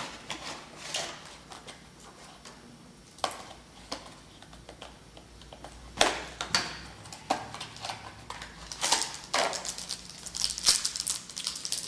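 Trading cards being handled and a sealed card pack's wrapper being crinkled and torn open: scattered clicks and rustles, busier in the last few seconds.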